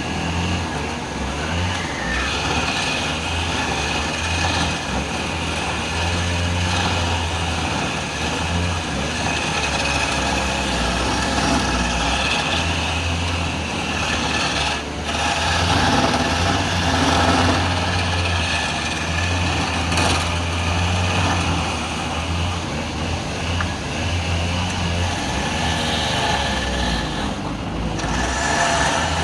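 Wood lathe running steadily, with a steady hum and the noise of a turning tool cutting the spinning wood.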